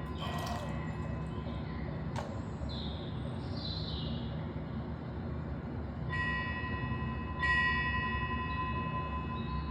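A small bell chiming twice, about six and seven and a half seconds in, each strike ringing on with clear sustained tones, over a steady low rumble of background noise.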